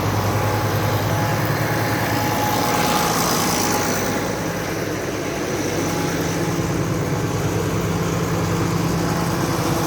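Tractor engine running steadily while backing up with a baler hitched on, its low hum easing briefly about halfway through, then steady again.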